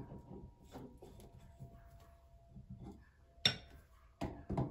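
Adjustable spanner clicking and clinking against a tap spindle as it is fitted on to tighten it lightly onto the seat, with a sharper metal clink about three and a half seconds in and two more near the end.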